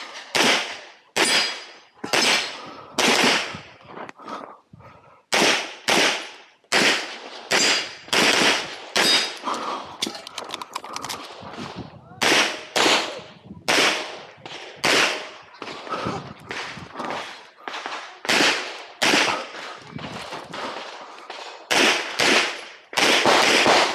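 Semi-automatic pistol fired in fast strings: many sharp shots, often in quick pairs about half a second apart, each with a short echo, broken by a few brief pauses and ending in a rapid run of shots.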